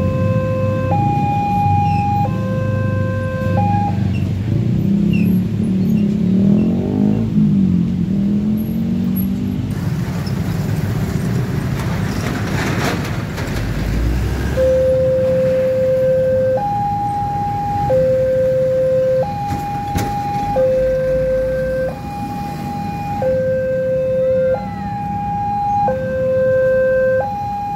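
Electronic two-tone warning alarm of a railway level-crossing signal, switching between a low and a high tone about once a second, which warns that a train is coming. It stops about four seconds in and starts again at about fifteen seconds. In the gap, road traffic and motorbikes are heard.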